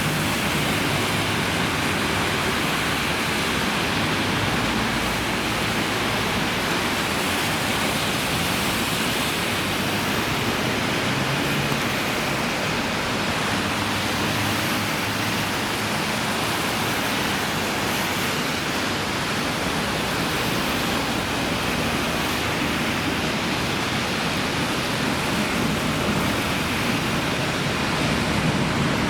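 A steady, even roar of noise with no distinct events.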